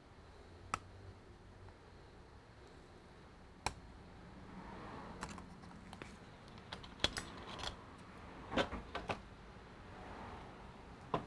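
Scattered light clicks and taps of small tools and parts being handled on a laptop being taken apart, a few at first and more often in the second half, with a faint rustle between them.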